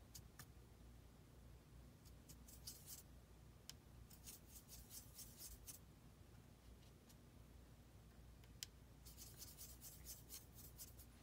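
Faint scratchy rubbing of a watercolor brush being worked against paint or paper, in three short spells of rapid strokes over quiet room tone.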